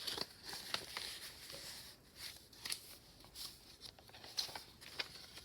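Paper pages of a handmade journal being handled and turned: soft rustling with scattered light clicks and taps.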